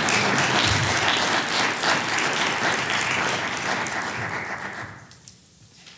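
Audience applauding, a dense patter of claps that dies away about five seconds in.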